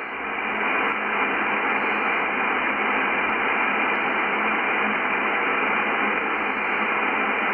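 Yaesu FTdx10 transceiver receiving the 20-metre amateur band at 14.198 MHz in upper sideband: a steady shortwave hiss, cut off sharply above about 3 kHz by its 3 kHz receive filter.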